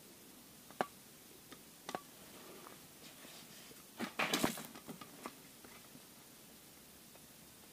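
A few faint sharp clicks, a second or so apart, and a short crackling rustle about four seconds in, as a caulking-type sealant gun is squeezed with its nozzle worked into the end of a corrugated plastic conduit.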